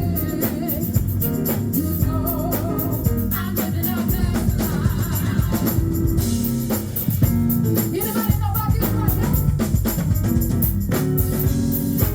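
Live gospel music: a woman singing in phrases with vibrato over a band led by a drum kit.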